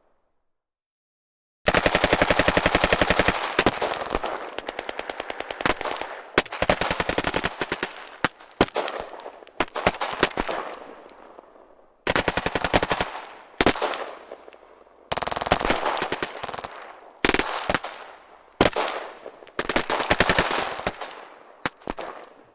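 Gunfire sound effect: after a second and a half of silence, repeated bursts of rapid automatic machine-gun fire, each burst trailing off in an echoing tail, with short gaps between bursts.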